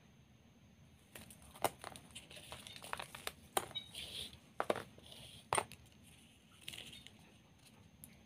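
Thread snips and ribbon being handled on a tabletop: about half a dozen sharp clicks and knocks between about one and six seconds in, mixed with short rustling of the ribbon.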